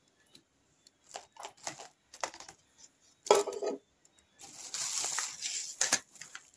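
Parts of a rice cooker being handled: a run of light clicks and knocks as the plastic steaming basket and pieces are moved, a louder clunk about three seconds in, then rustling of packaging with a sharp click near the end.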